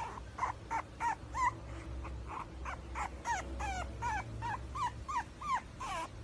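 French bulldog puppy whimpering in a run of short, high squeaks, about three a second, some sliding down and some up in pitch.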